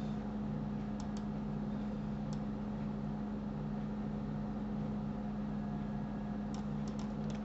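Steady low hum, with a few faint mouse clicks: two about a second in, one a little after two seconds, and a quick cluster near the end.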